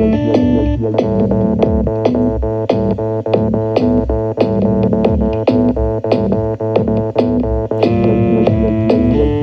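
Electronic music: synthesizer and keyboard chords over a bass line and a steady drum-machine beat.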